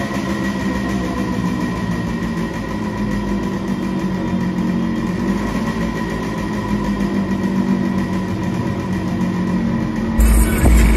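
Yamaha RX100's two-stroke single-cylinder engine idling steadily through its exhaust silencer. About ten seconds in, a loud low rumble suddenly breaks in.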